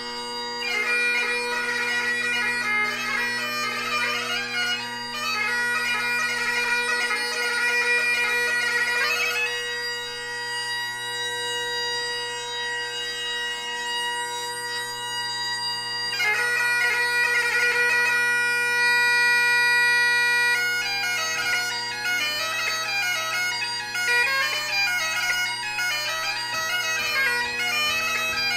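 Great Highland bagpipe played solo: steady drones under the chanter's melody, with quick ornamented fingering. The drones sound alone for a moment before the chanter comes in about half a second in.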